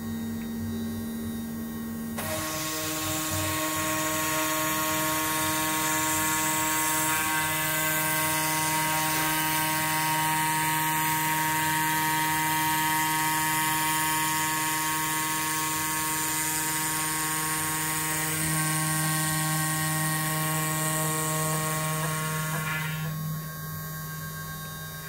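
Small CNC machine's spindle and stepper motors running while milling a printed circuit board: a mix of steady whining tones over a high hiss. The hiss rises about two seconds in and drops near the end, and the whine shifts pitch a couple of times as the axes change speed.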